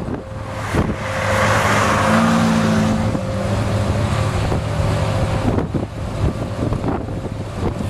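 A motor vehicle's engine hums steadily. A swell of rushing noise between about one and three seconds in fits a car going past on the road.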